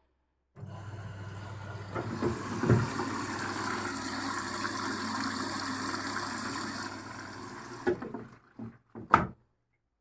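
Water rushing in steadily with a low hum, typical of a washing machine's inlet valve filling, louder from about two seconds in and stopping about eight seconds in, followed by a few sharp knocks.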